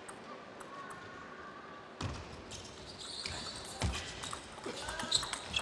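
Table tennis rally: the celluloid-type ball clicking sharply off rackets and the table at an uneven pace, starting about two seconds in, with thuds and short squeaks of players' shoes on the court floor.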